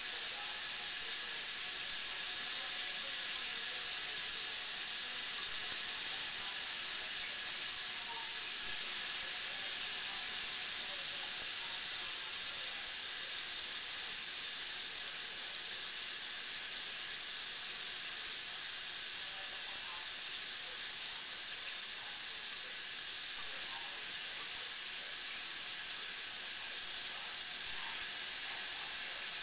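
Bathroom faucet running a thin, steady stream of water into a ceramic sink basin, an even hiss throughout.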